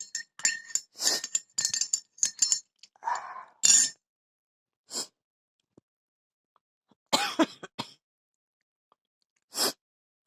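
A spoon clinking against a glass in a quick run of taps with a ringing tone, then a few single short sounds after a quiet gap of about two seconds.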